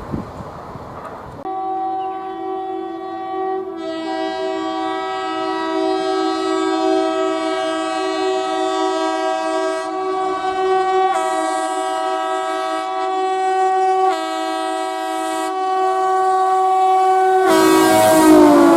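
Horn of a WAP7 electric locomotive sounding a long, nearly unbroken chord of several tones as the train approaches. It is warning gangmen doing track maintenance ahead. Near the end the train passes close, with a burst of running noise, and the horn's pitch drops.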